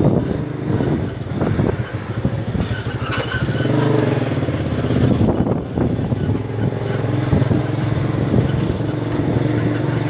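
Motorcycle engine running steadily.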